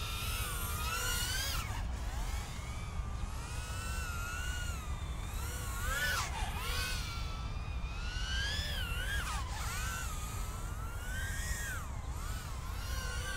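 BetaFPV Meteor75 brushless whoop's motors and props whining, the pitch rising and falling with throttle as it flies, dipping sharply and climbing back a couple of times. There is a steady low rumble underneath.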